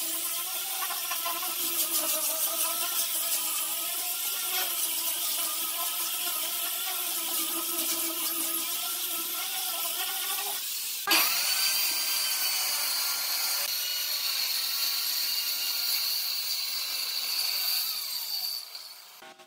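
Angle grinder with a sanding disc running under load against a wooden board, its motor whine wavering as it is pushed across the surface. About eleven seconds in, this switches abruptly to a Dekton circular saw spinning up and cutting along the board's edge, with a steady high whine, fading near the end.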